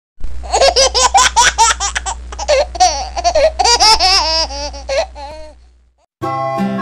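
A small child's laughter in quick, high-pitched bursts and giggles over a low steady hum, fading out about five and a half seconds in. A plucked-string music tune starts just before the end.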